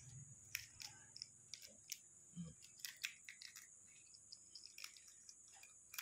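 Faint, scattered small clicks and crackles of a balut's eggshell being picked off with the fingers.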